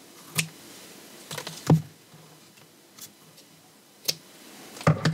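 A few short clicks and taps of small objects being handled on a craft table, the loudest a little under two seconds in, with soft knocks near the end against quiet room tone.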